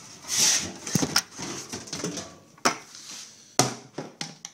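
Handling clatter of a white plastic brewing bucket and its lid being moved about, with rustling and a series of sharp knocks.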